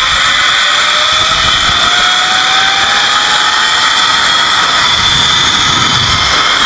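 Zip line trolley running along the steel cable at speed: a loud, steady whir with a thin whine that rises slowly in pitch as the rider gathers speed. Wind buffets the microphone underneath it.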